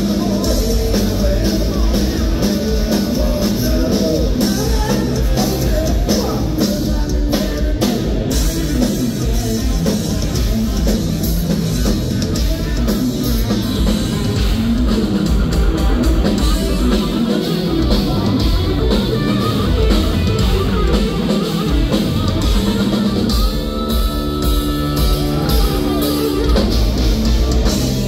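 A live rock trio plays at a steady, full volume: electric bass guitar, electric guitar and a large drum kit with cymbals.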